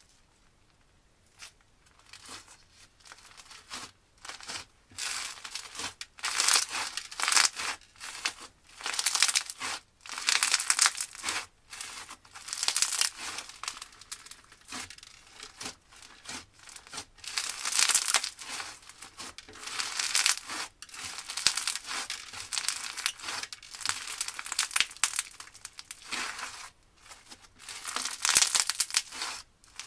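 Crunchy, gritty slime being pressed and squeezed by hand, giving crackling, crunching squishes in repeated bursts, louder every second or two, starting about a second and a half in.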